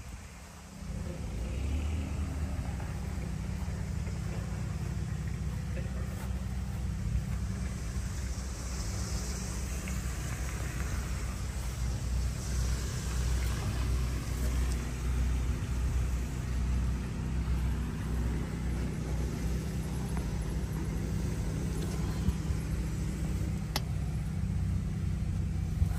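New Holland TN75 tractor's four-cylinder diesel engine idling steadily.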